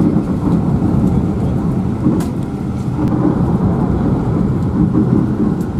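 Cabin noise of a high-speed passenger ferry cruising at about 74 km/h: a loud, steady rumble with no breaks.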